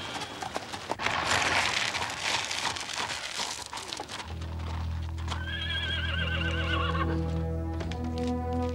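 Horse-drawn carriage going past: hooves clip-clopping and wheels crunching on gravel. About four seconds in, music with low held notes comes in, and a horse whinnies about a second later.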